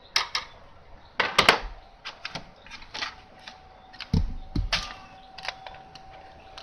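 Scattered light clicks and knocks, about a dozen, from handling a multimeter and its probes on the emergency light's circuit board, with a couple of heavier knocks. A faint steady thin tone runs underneath.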